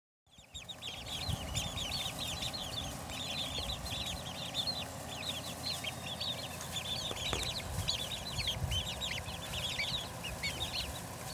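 A flock of young Silver Grey Dorking chicks, with a buff Cochin chick among them, peeping constantly: many short, high, downward-falling peeps overlapping without pause.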